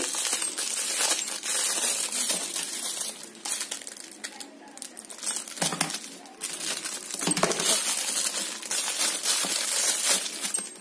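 Clear plastic packaging bag crinkling as it is handled and cut open with scissors, with light metallic clinks from the metal phone holder inside. It goes quieter for a few seconds in the middle, then the crinkling picks up again.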